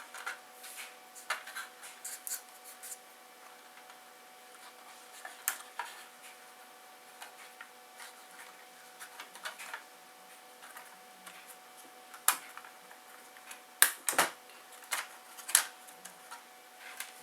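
Hard plastic parts of a car instrument cluster being handled and pressed together: irregular light clicks, taps and rubbing, with a few sharper clicks in the last few seconds.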